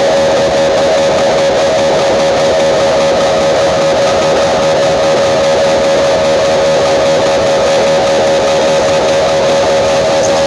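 Loud music with guitar played through large Thai outdoor-cinema (nang klang plaeng) sound systems, dense and unbroken, with one strong tone held steady under it.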